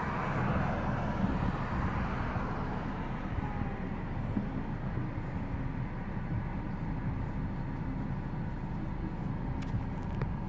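A vehicle passing close by: a rush of road noise that swells and then fades over the first few seconds, over a steady low rumble. No firework bangs are heard.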